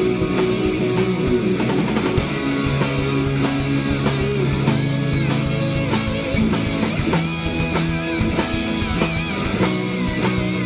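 Rock band playing live: a semi-hollow electric guitar over a drum kit, with a steady beat.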